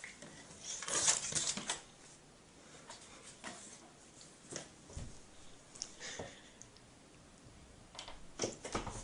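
Faint scuffling and rustling of cats moving about, with scratchy clicks coming in short clusters about a second in and again near the end; no meowing.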